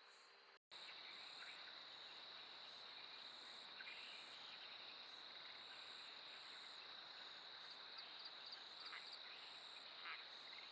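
Faint, steady chirring of night insects such as crickets, with a few soft ticks, broken by a brief dropout about half a second in.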